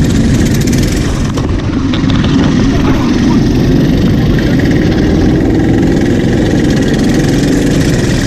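Go-kart engines running steadily, a dense low engine drone with no revving up or down.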